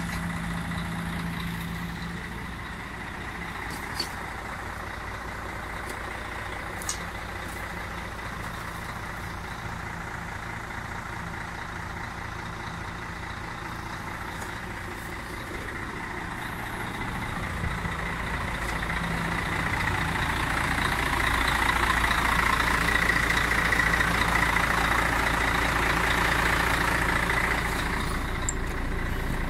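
Volvo FH12 tipper truck's straight-six diesel engine idling steadily, growing louder a little past the middle.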